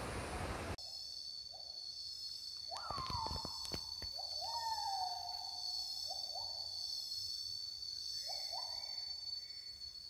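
Forest sounds: a steady high-pitched insect whine, with a wild animal giving repeated hooting calls, mostly short rising ones plus a couple of longer calls that slide down in pitch. A few sharp clicks about three seconds in.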